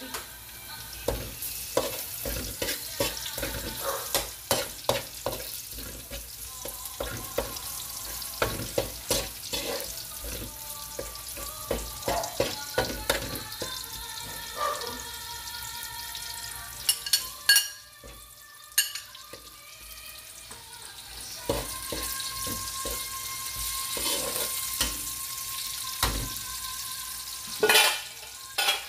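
Minced garlic, later joined by sliced red onions, sizzling in hot oil in a steel wok, with a metal spoon scraping and clinking against the pan as it is stirred: the aromatics being sautéed.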